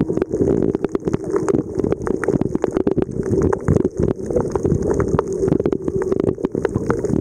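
Muffled underwater sound picked up by a submerged camera: a steady low rumble of moving water with irregular crackling clicks throughout.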